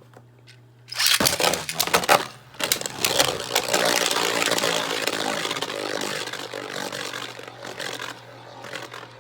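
Two Beyblades, a 3D-printed Agèma Ares and a Savior Valkyrie, launched into a plastic stadium about a second in: a sudden burst of sharp clicks and clattering as they land and collide. Then the spinning tops whirr and scrape against each other and the stadium floor with scattered clashes, slowly getting quieter.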